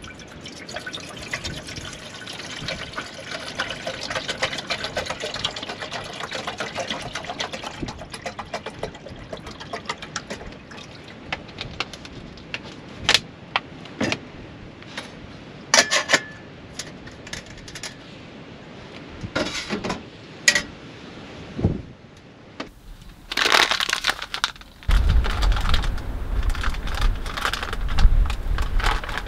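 Water poured from a plastic bottle into a kettle, a steady pour lasting about twelve seconds, followed by a few sharp knocks and clicks. Near the end a low rumble sets in, with the crinkling of a foil coffee bag being handled.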